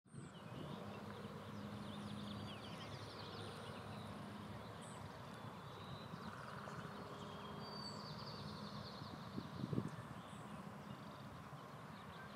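Small birds chirping and twittering in quick, high notes over a steady low background hum, with one brief louder thump about ten seconds in.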